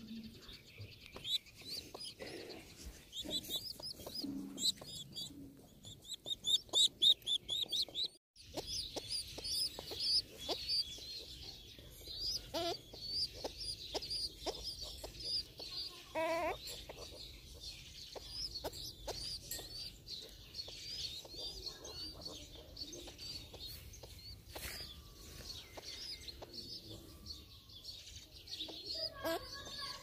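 Birds chirping and peeping in rapid high notes, with an occasional lower hen cluck among them. There is a brief break about eight seconds in.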